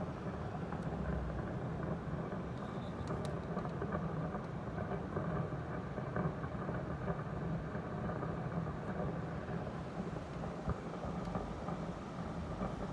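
Daikin Urara-Sarara AN40PRP-W air conditioner making a continuous gurgling, bubbling rumble, like something boiling, and quite loud. The owner takes it for the sound of water inside the unit.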